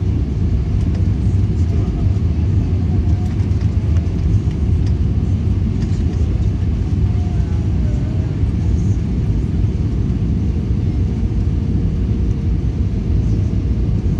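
Airbus A320 cabin noise on the landing approach: the steady low rumble of the engines and the airflow past the fuselage, heard from a window seat behind the wing.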